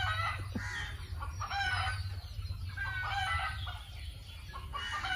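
Chickens clucking: a run of short, pitched calls about a second apart, over a steady low rumble.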